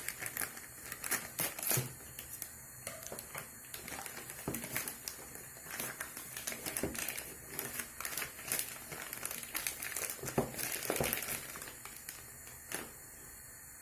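Packaging crinkling and rustling with irregular crackles and clicks as a parcel is unwrapped by hand; the handling stops with a last click shortly before the end.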